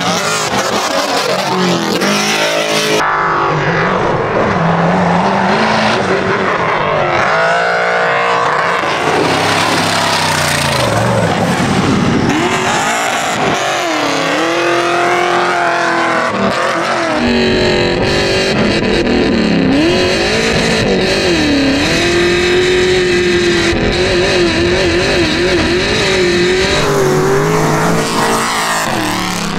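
Engines of a twin-turbo tube buggy and an LS V8-swapped Toyota Tundra prerunner at full throttle in an off-road drag race, their pitch rising and falling again and again.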